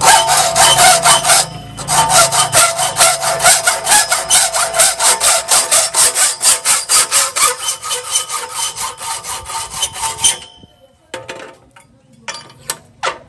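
Hand saw cutting with rapid, even back-and-forth strokes, about four a second. There is a short break about two seconds in, and the sawing stops about ten seconds in, followed by a few separate knocks.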